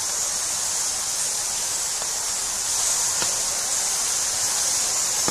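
Steady high-pitched hiss with a faint click about three seconds in.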